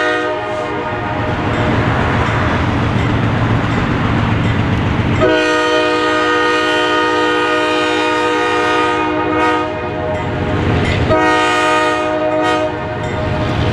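Multi-chime air horn of a diesel locomotive, the GE B23-7 leading, sounding the grade-crossing signal as the train approaches. A blast ends just after the start, a long blast comes about five seconds in, and a short blast about eleven seconds in. Between blasts the locomotive's diesel rumble and the rolling train are heard.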